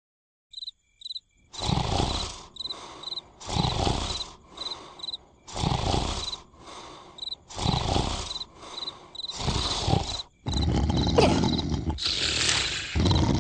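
Cartoon snoring sound effect: a loud rasping snore about every two seconds, each followed by a softer exhale, over steady cricket chirps. A little after ten seconds in it gives way to a denser, continuous noise.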